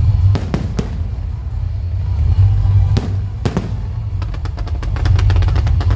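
Aerial fireworks going off: a few separate bangs in the first second and two more around three seconds in, then from about four seconds in a rapid run of crackling pops. A heavy low rumble runs underneath.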